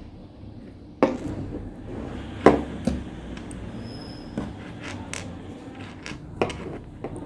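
A handful of sharp knocks and clicks over a low steady hum, the loudest about a second in and again about two and a half seconds in.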